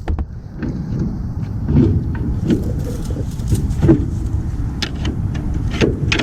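Scattered metal clicks, knocks and scrapes from tools prying at a car's old drum brake assembly, working the return springs and brake shoes loose, over a steady low rumble.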